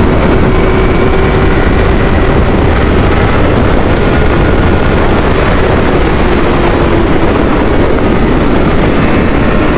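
Honda 600 four-cylinder sport motorcycle riding at a steady speed: loud, even wind noise on the microphone with the engine's steady note underneath, which fades out about seven seconds in.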